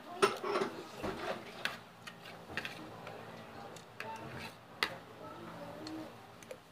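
A spoon and fork clicking against a plate while eating: scattered sharp clinks about once a second, with faint chewing and mouth sounds between them.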